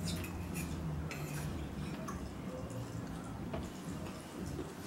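Metal fork and knife clinking and scraping against a plate in scattered light clicks, over a steady low hum.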